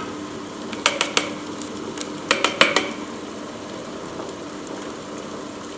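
Ultra Mini wet grinder running with a steady hum as its conical stones grind soaked rice and millet into idli batter in the stainless steel drum. A plastic spatula clicks and knocks against the steel drum in two quick clusters, about a second in and again about two and a half seconds in.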